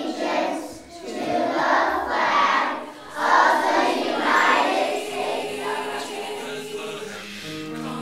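Many children's voices together, swelling about once a second and then fading, with held piano-like music tones coming in near the end.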